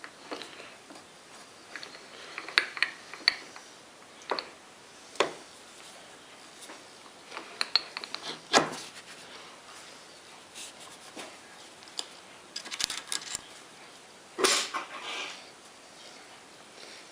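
Scattered metallic clinks and knocks, in small clusters, of steel tools and parts being handled at a mini lathe; no motor is running. The loudest cluster comes about two-thirds of the way through.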